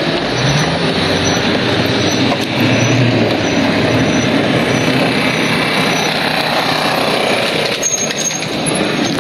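Road traffic on a busy street: a steady wash of engine and tyre noise from passing vehicles, easing off near the end.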